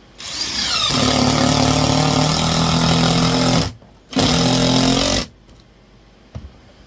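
Power drill with a magnetic bit driving a screw into a wall: the motor spins up with a rising whine and runs for about three and a half seconds, stops, then runs again in a shorter burst of about a second.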